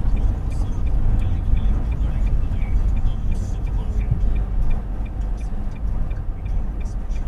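Steady low rumble of a car on the road, with faint quick ticking higher up.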